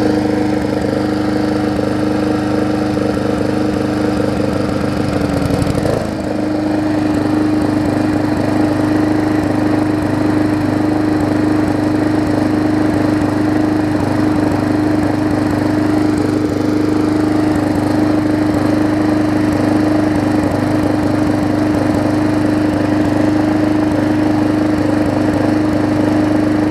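Briggs & Stratton Classic push-mower engine running steadily at constant speed, freshly swapped onto a new deck and running after the repair. There is a short jump in the sound about six seconds in.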